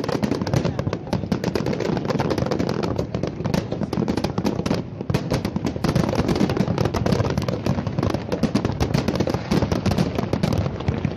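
Aerial fireworks display: a dense, continuous barrage of overlapping bangs and crackles from many shells bursting at once.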